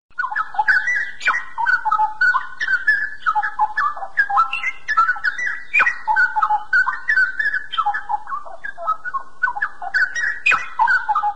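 Straw-headed bulbul (cucak rowo) singing a long, unbroken run of quick warbled whistles that glide up and down.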